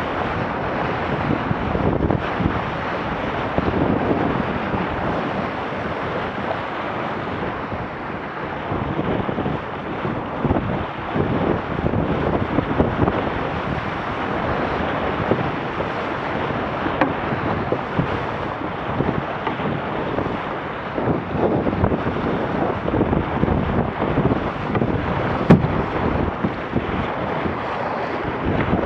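Wind buffeting the microphone over the rush and splash of water along a Laser Radial dinghy's hull as it sails at about 9–10 knots through chop. Short knocks come through now and then, the sharpest about 25 seconds in.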